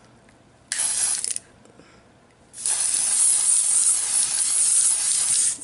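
Jerome Alexander airbrush foundation aerosol can spraying: a short hiss of under a second, then a long steady hiss of about three seconds.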